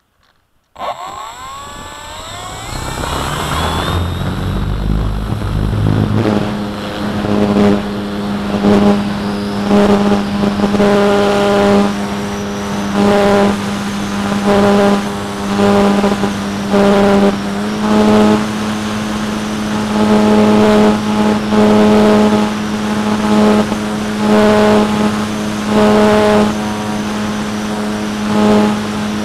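Electric brushless motor of an RC powered glider spinning up about a second in with a sharply rising whine, then running steadily and driving the propeller, its pitched hum swelling and fading about once a second. A low rumble runs under the spin-up for the first few seconds.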